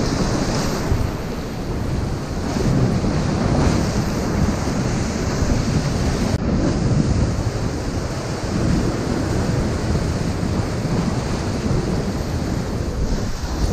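Ocean surf breaking and washing over shoreline rocks in a steady wash of noise, with wind buffeting the microphone.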